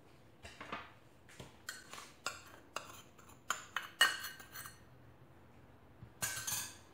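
A metal spoon scraping and tapping inside a small glass bowl, a quick irregular run of clinks, as icing sugar is knocked out into a mixing bowl. A short second cluster of clinks comes near the end.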